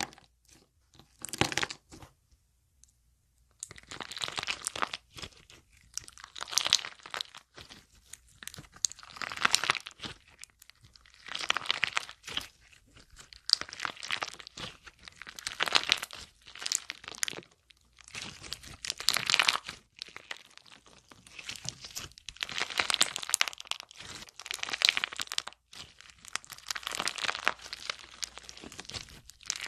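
Slime being squeezed and pressed by hand, crackling and crunching in repeated bursts every second or two.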